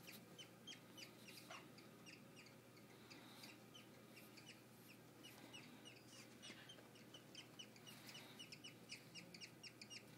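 Baby English budgies peeping: a quiet, continuous run of short, high chirps, several a second.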